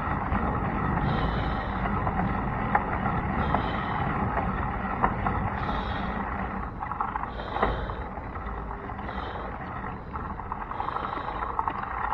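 Wind and road rumble on a bicycle's handlebar-mounted camera while riding, with scattered clicks and rattles as the bike goes over bumps.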